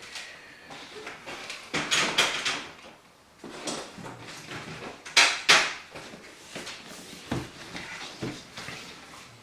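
Things being rummaged through and handled: irregular rustling, scraping and light knocks, loudest in two bursts about two and five seconds in.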